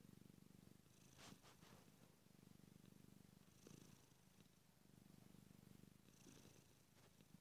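Domestic cat purring quietly and steadily, close up, the purr swelling and easing with its breathing about every two to three seconds.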